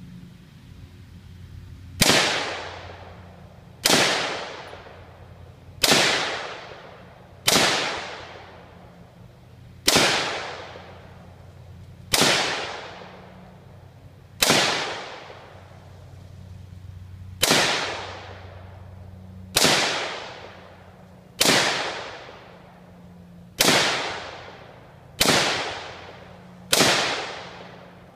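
Stag Arms Model 3L AR-15 rifle in .223 fired semi-automatically, thirteen single shots about two seconds apart in slow, aimed fire, starting about two seconds in. Each sharp report trails off in a long echo.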